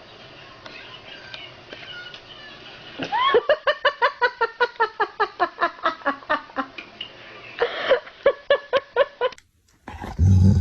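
A pet animal giving a long run of short, pitched calls, about five a second, then a second shorter run. A loud low sound comes just before the end.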